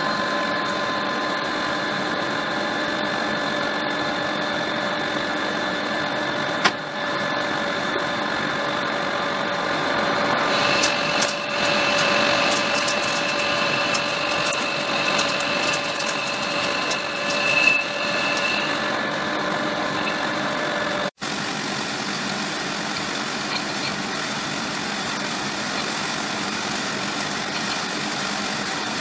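Metal lathe running steadily with its chuck spinning, a hum with several steady tones. From about ten seconds in, a high squeal with crackling comes in for several seconds as the cutting tool works the bore of the metal workpiece. It breaks off abruptly at about 21 s, and steady running follows.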